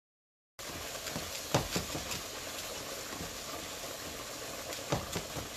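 Ground beef sizzling in a frying pan, a steady hiss, with the sharp knocks of a spatula against the pan as the meat is stirred and broken up. The sound is cut out entirely for about the first half second.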